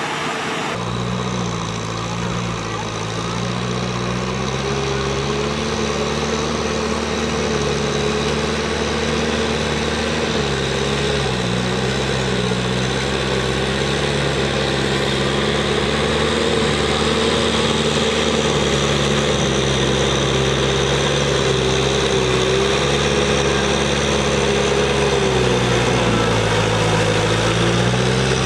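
Kubota tractor's diesel engine working through a flooded rice paddy, running steadily under load; its pitch dips and recovers about ten seconds in and again near the end as the load changes.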